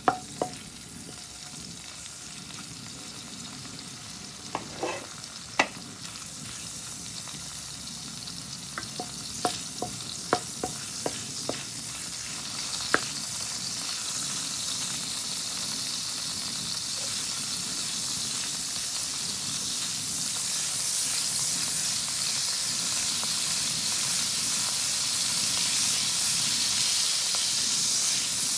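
Salted mackerel pieces frying in hot oil in a wok: a steady sizzle that gradually grows louder. In the first half there are scattered sharp clicks and taps as a wooden spatula stirs the fish.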